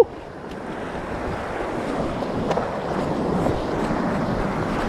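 Sea surf washing over a rocky shore, with wind rumbling on a moving action camera's microphone: a steady rushing noise.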